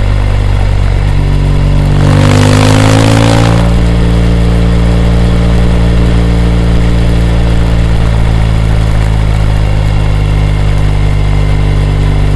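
BMW R 1200 GS boxer-twin engine and exhaust on the move. About two seconds in, the rider opens the throttle: the pitch rises and a louder, noisier rush lasts about a second and a half. The engine then settles to a steady pull.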